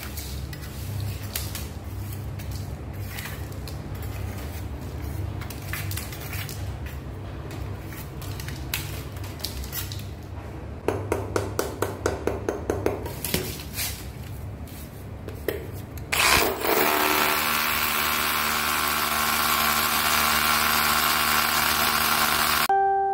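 Rotary hammer drill boring into a concrete wall, drilling ports for pressure-injection packers to seal a leaking crack. It starts about two-thirds of the way in, runs steadily, and stops abruptly just before the end. Earlier there is a quick, even run of about a dozen knocks, about six a second, over a low rumble with scattered clicks.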